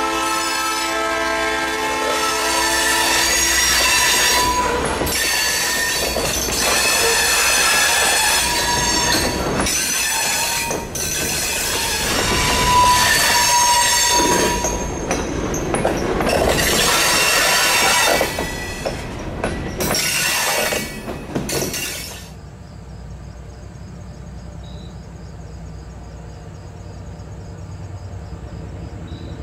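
Freight train passing close by: a diesel locomotive's multi-note horn sounds for the first few seconds, then the freight cars' wheels squeal and screech against the rails on a curve, with clatter over the rail joints. About twenty-two seconds in the sound drops sharply to a much quieter steady background.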